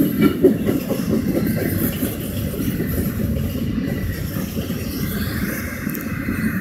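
Double-stack intermodal freight cars of a CSX train rolling past: a steady low rumble of steel wheels on rail, with a few sharp clicks of wheels over rail joints in the first second.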